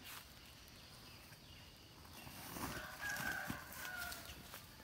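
A rooster crowing once, faintly, beginning a little past the middle and lasting about two seconds.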